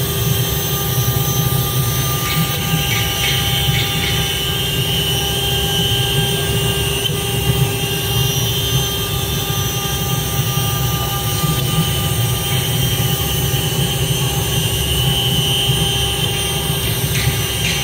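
STYLECNC STM1325-R3 wood CNC router running. Its steady machine whine of several held tones sits over a constant low hum, with brief stronger patches in a higher band now and then.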